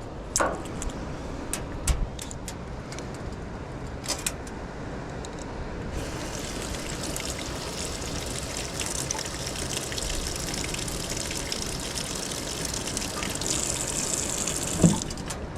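Gulf surf washing and hissing around the pier, a steady rush that builds about six seconds in and stops near the end. A few sharp clicks come in the first few seconds, and one short louder sound comes just before the end.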